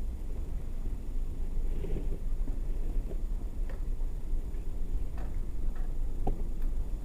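Steady low rumble of wind buffeting the microphone outdoors, with a few faint scattered clicks and knocks in the second half.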